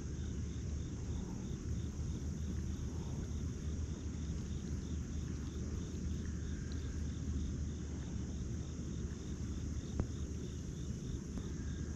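Insect chirping steadily, a high pulse repeated about four to five times a second, over a steady low rumble.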